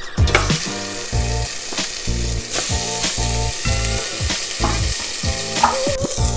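Raw pork chops sizzling and frying in hot oil in a stainless steel pot, the sizzle starting just after the meat goes in. Background music with a steady beat plays underneath.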